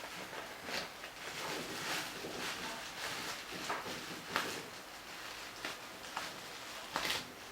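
Packaging being handled: irregular rustling with sharp clicks and taps, the loudest about four and a half seconds in and again near the end.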